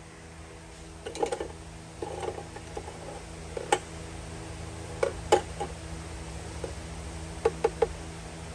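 Small metal carburetor parts clinking and tapping against the metal tank of a small ultrasonic cleaner as they are fished out with fingers and a screwdriver. The clicks come singly and scattered, then as a quick run of three near the end, over a steady low hum.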